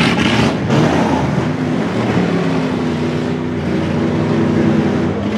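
Demolition derby trucks' engines running loud and being revved, their pitch rising and falling as they manoeuvre.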